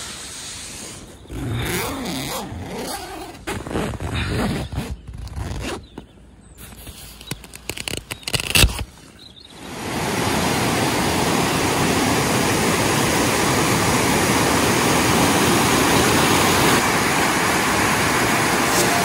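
Nylon tent fabric and sleeping bags rustling and scraping, with a sharp knock about nine seconds in. About ten seconds in this gives way to the steady rush of water tumbling down a rocky mountain stream cascade.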